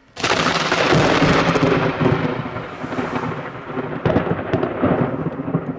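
Thunder: a sudden crack a moment in, then a long rolling rumble that slowly fades, swelling again with fresh claps around four and five seconds in.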